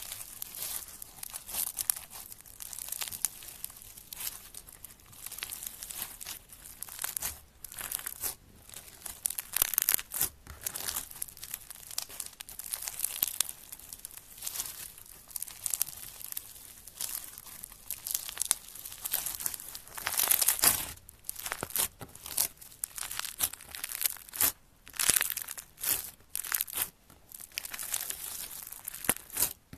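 Floam, slime packed with small foam beads, being squeezed, stretched and pulled apart by hand: a dense crunchy crackling and popping of the beads that comes in irregular bursts.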